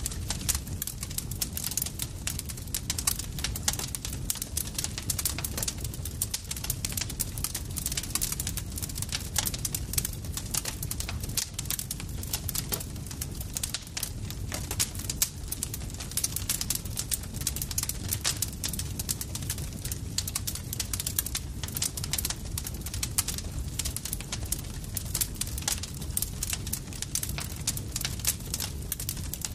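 Campfire crackling steadily: a dense run of irregular snaps and pops of burning wood over a low, constant rumble of the flames.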